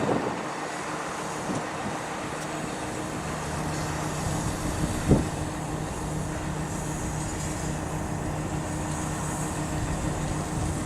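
A steady engine drone with a low hum that comes in about three seconds in, and a single knock about five seconds in.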